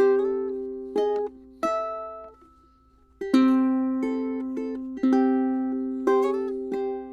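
Jupiter tenor ukulele with a redwood top and sycamore back and sides, played slowly: plucked single notes and chords left to ring and fade, with a short pause about two and a half seconds in before the playing resumes.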